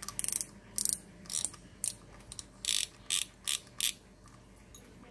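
Shimano spinning reel worked by hand: a quick run of ratchet clicks at the start, then about seven short bursts of gear noise as the handle is turned in quick spins.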